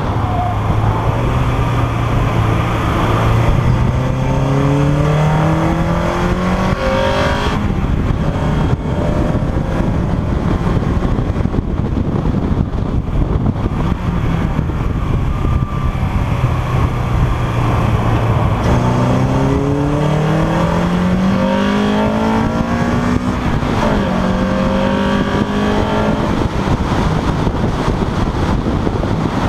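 Honda Integra DC2 race car's four-cylinder engine under load, heard from inside the cabin over road and wind noise. The engine note holds steady, then climbs in pitch as the car accelerates. It fades about a third of the way in through a slower corner, then climbs again, with a quick drop and rise at an upshift near the end.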